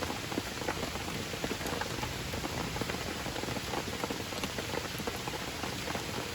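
Steady rain falling and pattering on surfaces, with many small scattered drop ticks.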